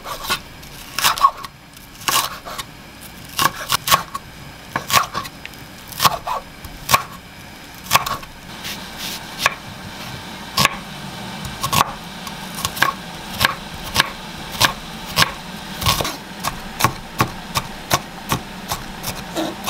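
Chef's knife chopping green onion and then onion on a wooden cutting board: sharp knocks of the blade on the board. They come at an irregular pace at first, then quicker and more even in the later part as the onion is minced fine.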